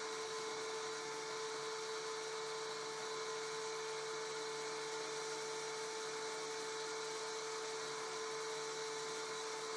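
Spindle of a 3DWaxMill desktop CNC mill running steadily with a constant whine as a 3 mm bit mills a jewelry wax tube turning on the rotary attachment.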